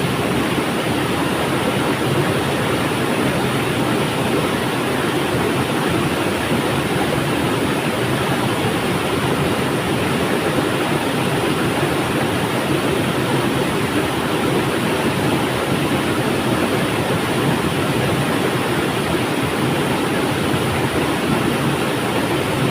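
Flowing river: a steady, even rush of water with no separate splashes or changes.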